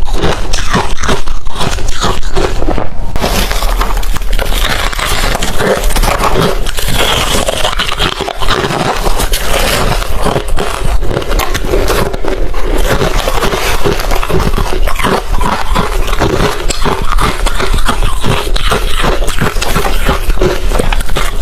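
Hard refrozen crushed ice being chewed close to the microphone: dense, continuous crunching and cracking as the ice breaks between the teeth.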